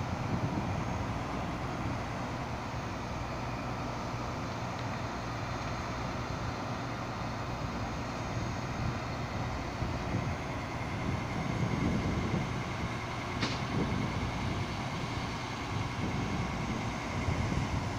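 Steady low rumble of vehicle engines and road traffic, with one sharp click late on.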